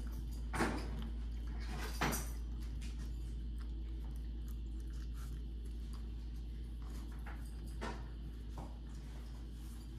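A three-week-old puppy at a plastic food bowl on a tabletop: two sharp knocks about a second and a half apart near the start and a lighter one near the end, with faint clicks of eating and movement between, over a steady low hum.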